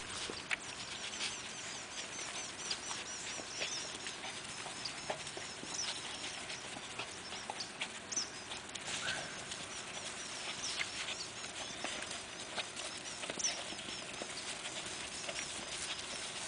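Belgian Malinois puppies scuffling and nosing about in grass: rustling, light paw patter and small clicks and knocks, with a short whine about nine seconds in. High, quick chirps repeat through the background.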